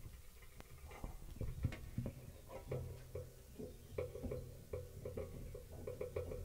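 Faint, scattered clicks and knocks of people moving about and handling gear on a trailer stage, over a low hum.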